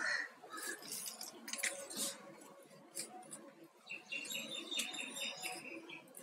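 Thin plastic craft wire rustling and clicking as it is braided and pulled tight, with a quick run of high chirps about four seconds in.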